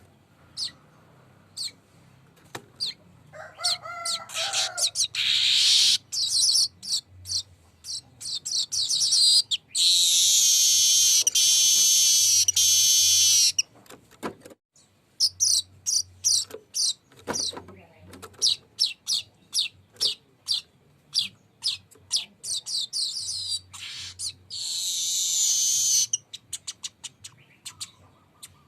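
Weaver bird (manyar) singing its long rolling song: runs of quick high chirps and trills, broken by two long, dense buzzy rolls, one about ten seconds in and one near the end.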